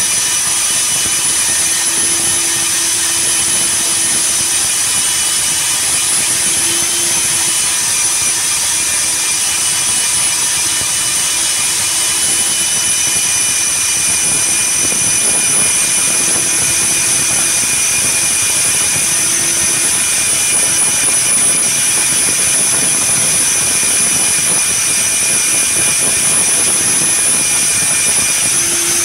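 Hilti diamond core drill running steadily while its core bit cuts wet into a concrete floor: a continuous high-pitched motor whine over a noisy hiss.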